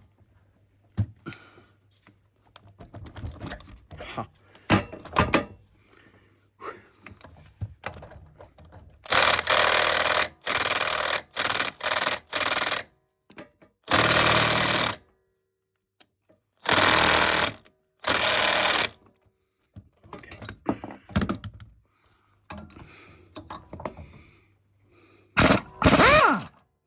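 Handheld power tool run in about nine short bursts of a second or less, most of them between about nine and nineteen seconds in and one more near the end, undoing bolts through a socket. Between the bursts come clinks and knocks of tools and metal parts.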